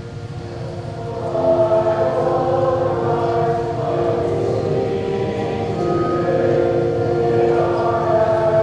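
Music with long held notes in several parts, swelling louder about a second and a half in.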